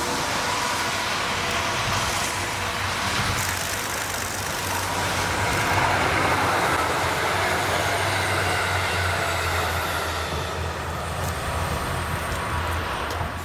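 A JR Hokkaido KiHa 183 series diesel multiple unit passing: its diesel engines run with a steady low hum over the rumble of wheels on the rails, loudest as the cars go by about six seconds in and easing off near the end.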